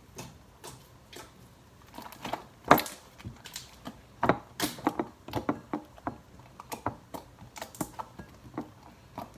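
An irregular series of sharp clicks and taps, sparse at first and then coming thick and fast from about two seconds in, with one louder click.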